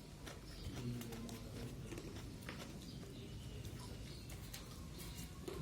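Close-up chewing of crispy smashed fried chicken (ayam geprek): an irregular string of short, crisp crunches and mouth clicks.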